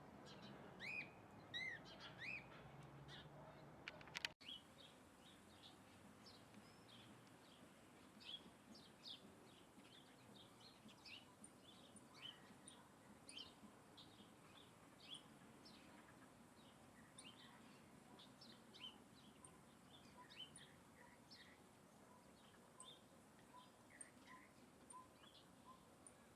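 Small songbirds chirping: many short, high calls in quick, irregular succession, with faint, evenly repeated notes in the later part. A sharp click with a brief dropout about four seconds in.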